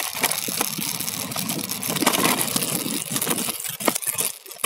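Small-wheeled scooter rolling over uneven, bumpy concrete, its vibration rattling through the handlebar phone mount: a dense clatter with scattered sharp knocks, easing off near the end.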